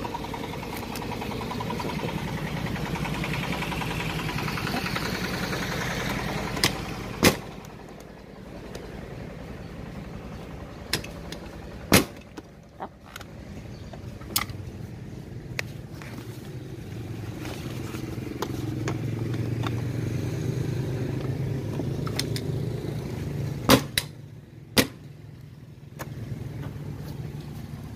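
A motor vehicle's engine hum swells and fades twice. Several sharp clicks and knocks come from the scooter's plastic seat and under-seat compartment being handled.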